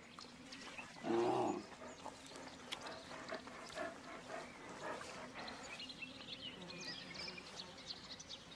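Brown bear giving one short growl about a second in, a warning from one bear to another at a feeding spot. Faint scattered clicks and high chirps follow.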